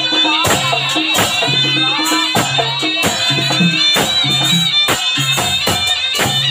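Traditional Javanese barong dance music played live: held ringing and reedy tones over sharp percussion strokes about twice a second and a recurring low drum or gong note.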